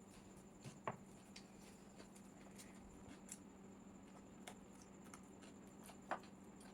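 Quiet eating sounds: faint chewing and soft clicks, with two sharper clicks about a second in and near the end, over a faint steady hum.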